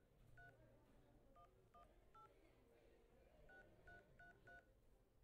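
A phone keypad dialing a number: about eight short, faint two-tone beeps at uneven spacing, one near the start, then a group of three, then a quicker group of four.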